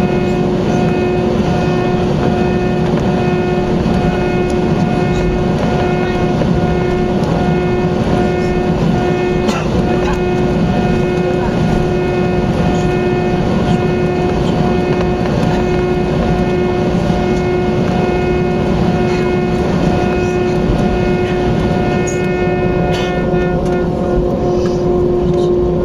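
Airbus A320neo's Pratt & Whitney PW1100G geared turbofan engines heard from inside the cabin: a steady, loud rumble with several fixed whining tones on top. Near the end some of the higher whine tones fade and the pitch shifts slightly, as the engine thrust changes.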